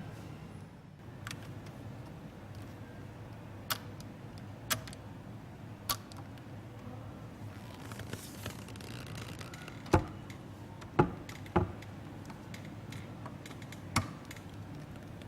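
A handful of sharp, separate clicks and knocks over a steady low hum, the loudest about ten seconds in and a quick pair soon after.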